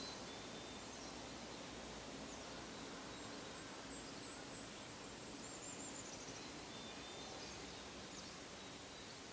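Quiet forest ambience: a steady soft hiss with a few faint, high bird chirps and a short trill scattered through it.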